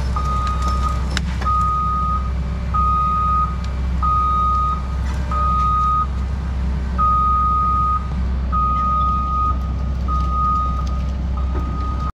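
Heavy-equipment backup alarm beeping about once a second, a single steady tone repeated about nine times, over a diesel engine running steadily.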